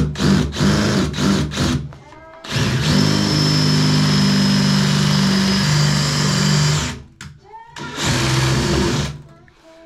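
Power drill drilling out a stripped handle screw on an old three-handle tub/shower valve. It starts in short on-off bursts, then runs steadily for about four seconds, stops, and runs once more for about a second.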